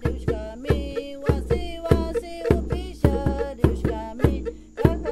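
Background music with a steady drum beat under a melodic line.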